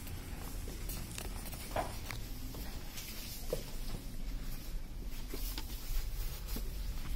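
Quiet hotel-room tone: a low steady hum with faint scattered clicks and rustles.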